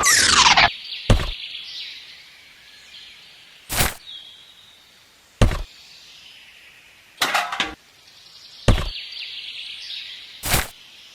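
A quick falling whoosh, then a run of sharp, single knocks about every one and a half to two seconds, one of them a quick double, over a faint high hiss.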